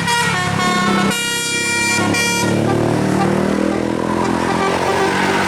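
A bus's multi-tone 'telolet' musical air horn playing a short tune of stepped notes for about two and a half seconds, then the lower sound of the bus going by, its pitch gliding.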